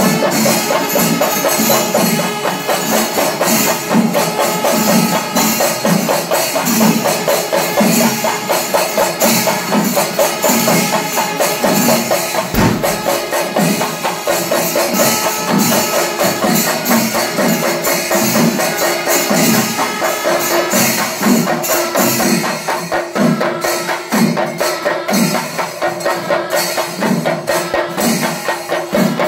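Chenda melam: a large ensemble of Kerala chenda drums beaten with sticks, dense rapid strokes over a steady beat a little more than once a second, with metallic jingling of hand cymbals and steady held tones through it.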